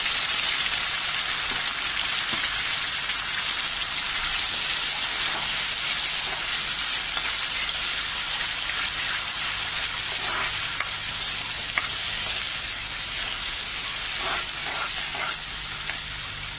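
Ground tomato, onion and spice masala paste sizzling steadily in hot oil in a kadhai, with a metal spoon scraping and stirring it a few times in the second half. The masala is being fried until the oil separates.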